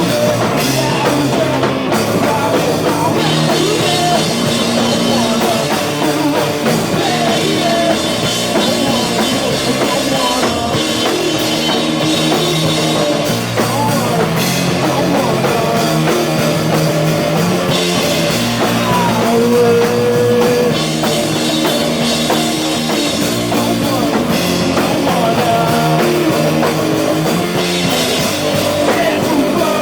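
Live rock band playing a loud punk song with drum kit and guitars, without a break.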